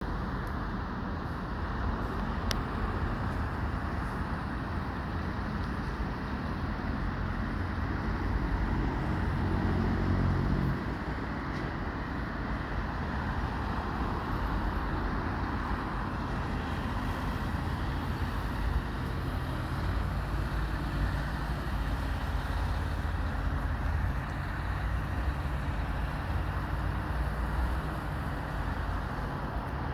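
Steady road traffic noise from a busy city avenue, with a heavier vehicle's engine passing louder about a third of the way in before the traffic settles back to a steady rumble.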